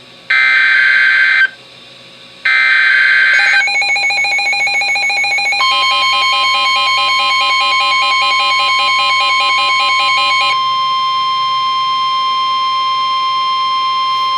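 NOAA Weather Radio alert signal: two buzzy bursts of SAME digital header tones, then weather radio receivers' alarms start beeping. About five and a half seconds in, the steady 1050 Hz warning alarm tone begins and holds for about nine seconds, while the receivers' beeping stops about ten and a half seconds in. It marks the start of a new warning broadcast.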